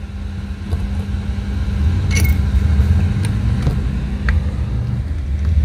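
A steady low engine rumble with a hum, growing a little louder about two seconds in. Over it come a few light metallic clicks and taps as a piston is handled and fitted onto the connecting rod of a two-stroke scooter crankcase.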